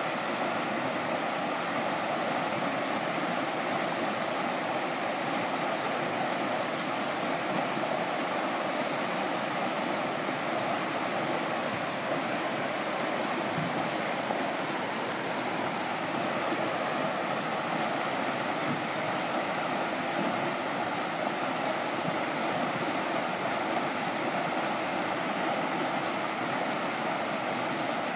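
Whitewater rapids rushing over rocks below a small concrete dam: a steady, unbroken rush of fast water.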